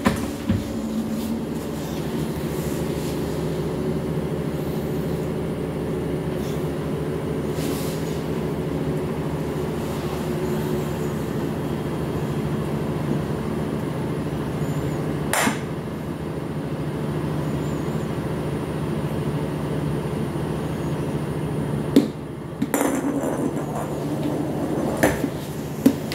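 A steady low mechanical hum throughout, with a few sharp knocks: one about halfway through and several near the end.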